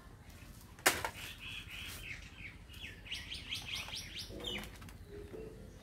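A sharp click about a second in, then a small bird chirping a quick series of short notes that speed up and rise in pitch.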